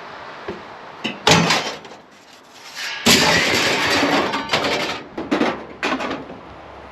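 Scrap iron being thrown onto a truck: metal clanging and clattering, with a sharp crash about a second in, a longer clatter about three seconds in, and several more clanks after it.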